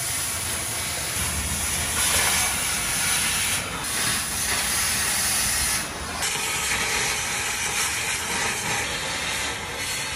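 Cutting torch hissing steadily as it cuts through a pickup's stock exhaust pipe, throwing sparks.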